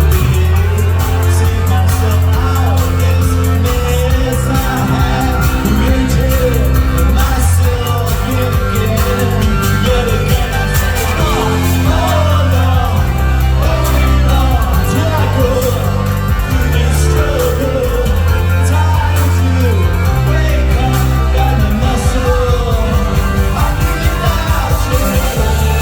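Live pop band music played loud in a hall: deep sustained bass notes that shift every few seconds under a gliding, wavering melody line, with no sung words.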